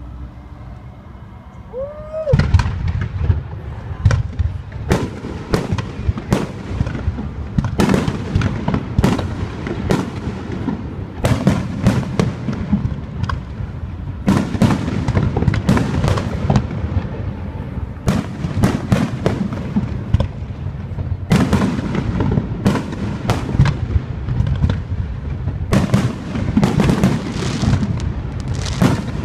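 Fireworks display: after a couple of seconds of lower noise, a dense barrage of bangs and crackling reports sets in and keeps going, several explosions a second.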